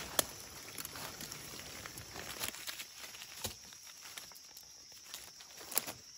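Dry leaf litter and twigs rustling and crackling as hands push through them, with a few sharp snaps; the rustling eases after about two and a half seconds. A steady high insect tone runs underneath.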